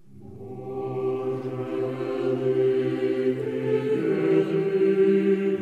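Slow, solemn choral-style music with long held chords, fading in at the start and changing chord about four seconds in.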